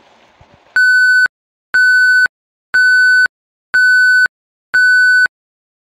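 Five identical electronic beeps, each about half a second long and spaced one second apart, a single steady high tone edited over the soundtrack, with dead silence between them.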